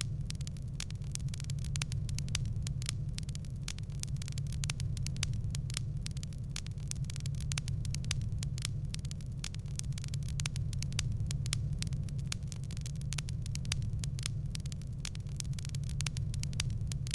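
Wood fire crackling: a dense, irregular run of sharp pops and snaps over a steady low hum.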